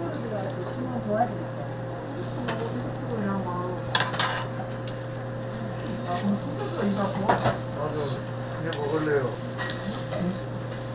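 Food sizzling as it fries on a hot flat griddle, with sharp scrapes and taps of a metal spatula against the griddle a few times.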